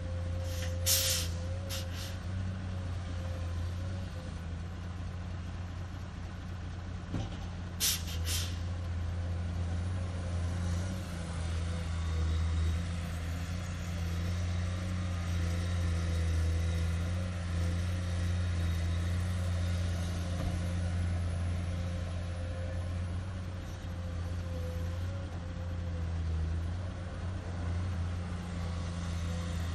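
Komatsu PC210 excavator's diesel engine running steadily with a low drone as it works, loading a dump truck. Two short, sharp hisses of air cut in about a second in and again about eight seconds in.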